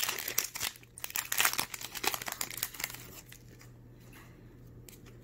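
Crinkling and tearing of a Magic: The Gathering booster pack wrapper being opened: a dense run of crackles for about three seconds, then only a few faint clicks.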